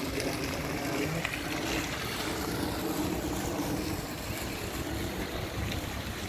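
Steady outdoor ambience: a low, even motor hum under the hiss of fountain jets splashing into a pool, with wind rumbling on the microphone.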